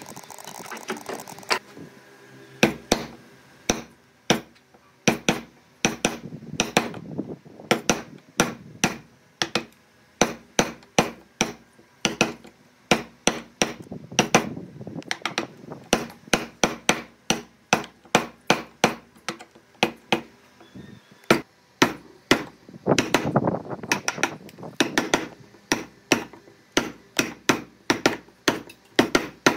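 Hammering on wood: a long series of sharp separate blows, about two a second, in runs broken by brief pauses.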